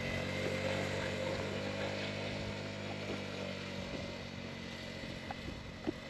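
A small four-wheeler (ATV) engine running steadily as it pulls a sled, fading as it moves away after about four seconds.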